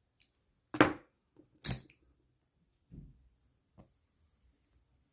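A few sharp metallic clicks from handling a Zippo lighter with a butane torch insert, the two loudest in the first two seconds, then a faint hiss about four seconds in.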